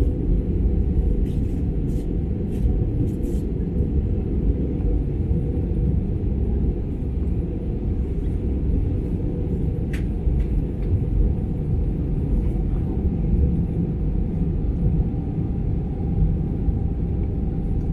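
Steady low rumble of airflow and engine noise inside an Airbus A320 passenger cabin during descent, with a few faint clicks near the start and one sharper click about ten seconds in.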